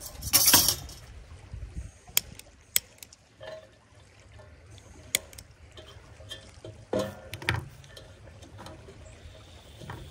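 Metal wire guard of a portable propane heater-stove lifted off and set down, a clatter of metal in the first second, followed by scattered clicks and knocks of handling. A creek's water runs steadily underneath.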